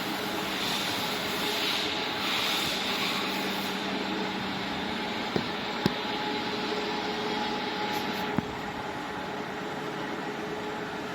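A CNC high-speed plate drilling machine running with a steady mechanical noise. Three sharp clicks come about five, six and eight seconds in, and a high hiss drops away at about the third.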